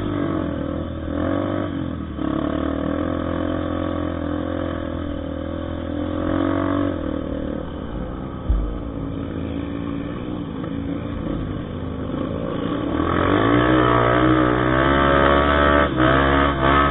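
Trail motorcycle engine running at low revs, then revved up about thirteen seconds in and held high with the pitch wavering. A single low thump comes about eight and a half seconds in.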